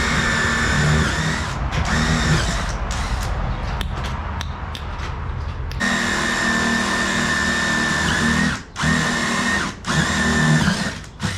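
Power drill running in several trigger bursts, its motor whine starting and stopping, with a rougher, quieter stretch in the middle.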